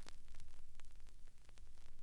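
Faint crackling static: scattered sharp clicks over a steady hiss and a low rumble, with no music yet.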